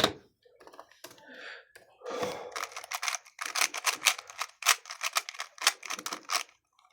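Plastic 3x3 speedcube being turned by hand: a few scattered clicks, then a fast run of clacking layer turns for about four seconds as an algorithm (the parity fix) is executed, stopping just before the end.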